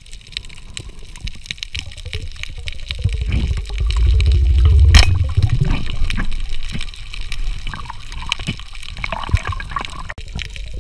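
Water moving around an underwater camera, with scattered crackling clicks and a low rumble that swells to a sharp crack about five seconds in, then settles back to softer sloshing.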